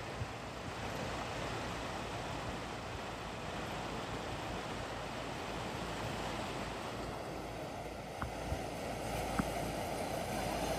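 Car driving through deep floodwater, the water washing and surging steadily around it as it pushes a bow wave, with wind on the microphone. A few short knocks near the end.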